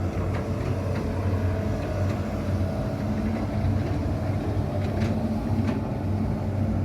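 Diesel engine of a Hitachi ZX200-5G excavator running steadily, with a few light metallic knocks.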